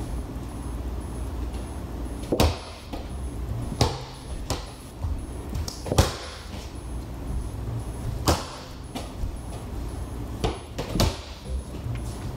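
A soccer ball bounced hard on a wooden floor: about ten loud thuds at uneven intervals of roughly half a second to two seconds, each with a brief ring of room echo.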